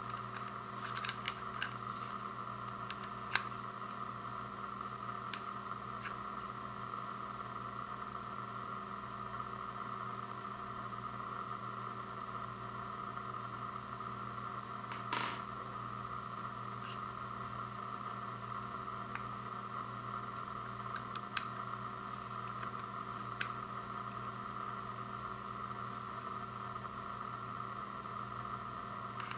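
A steady hiss and hum of background noise, with a few sparse, short clicks and taps of small plastic parts as a wireless optical mouse and its USB dongle are handled. The sharpest click comes about halfway through.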